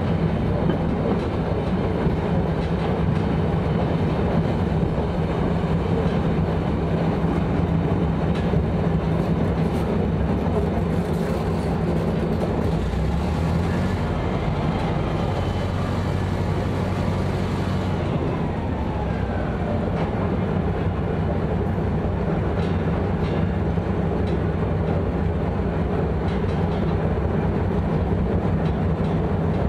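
A 1956 Deutz diesel shunting locomotive's slow-running four-cylinder two-stroke diesel engine works steadily under load as it hauls a roughly 120-tonne train up to speed. Its note shifts for a few seconds around the middle.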